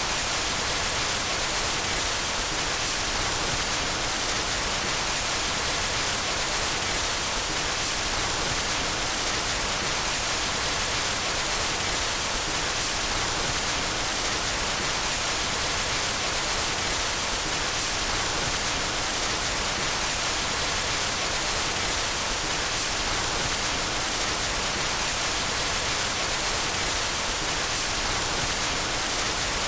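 Steady white noise: an even, unchanging hiss across the whole range, brightest in the highs.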